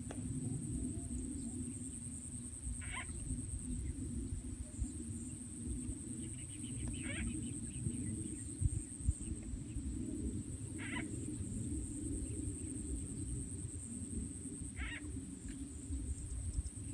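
Frogs croaking: a steady low chorus, with a short higher call repeating about every four seconds. A steady high-pitched buzz runs underneath.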